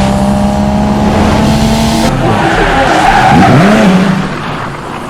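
Loud vehicle sound effect like a racing car with tyre squeal: a steady engine-like note that turns into a wavering, bending tone about two seconds in and fades away near the end.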